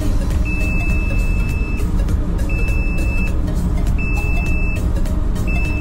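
Lifeboat's inboard diesel engine running with a steady low rumble inside the enclosed hull. A high-pitched beep from the engine control panel sounds four times over it, each beep about a second long.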